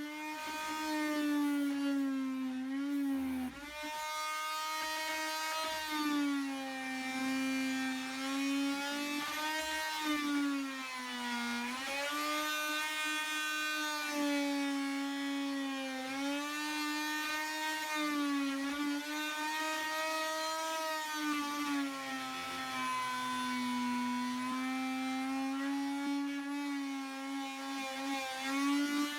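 Oscillating multi-tool running with a steady high buzz while cutting, its pitch sagging and recovering every few seconds as the blade bites and is eased off, with a brief dip about three and a half seconds in.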